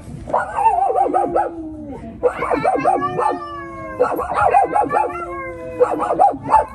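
A dog howling in several long, wavering calls that fall slowly in pitch, with short breaks between them.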